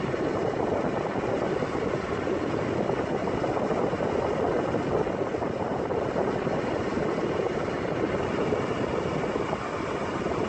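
Suzuki Alto 800's heater/AC blower fan running loud: a steady rush of air through the dashboard vents.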